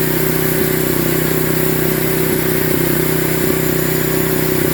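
Sawmill engine running steadily between cuts, an even, unchanging hum.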